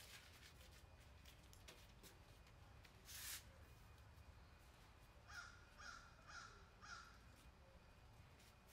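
A crow cawing faintly four times in quick succession, about half a second apart, over near-silent room tone. A brief hiss about three seconds in.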